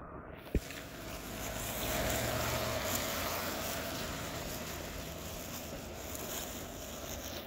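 A car driving along a wet, slushy road, its tyres hissing on the wet surface; the noise swells about two seconds in and then eases off as the car moves away.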